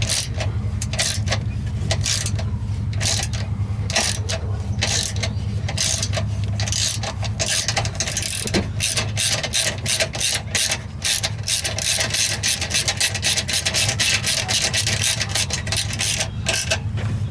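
Hand socket ratchet clicking as it drives a self-tapping bolt into the steel frame of a Jeep Wrangler JK, in slow strokes at first and then in a quick run of clicks through the second half, over a steady low hum.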